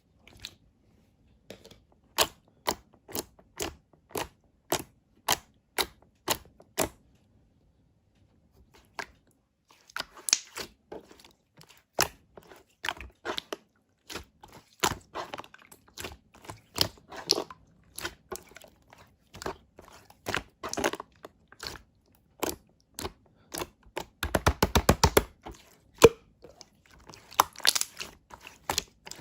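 Red slime being handled and pressed, giving sharp popping clicks, about two a second at first. Then comes a denser run of crackling pops, with a quick rattle of pops near the end.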